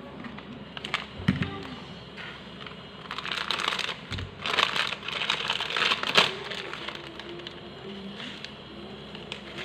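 Handling noises on a craft table: a few sharp clicks, then several seconds of rustling and scraping as a pair of metal scissors is brought in and laid down on a cutting mat, ending in a sharp click.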